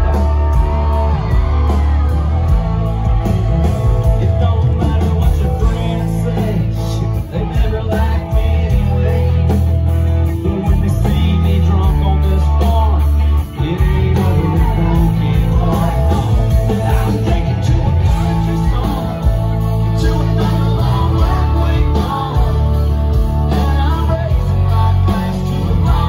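Live country-rock band playing loud through a concert sound system, with a man singing lead, heard from within the audience. The mix is dominated by a heavy bass.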